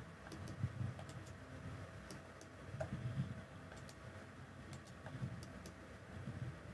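Computer mouse clicking: faint, sharp, scattered clicks as lines are picked one after another, with soft low thuds in between.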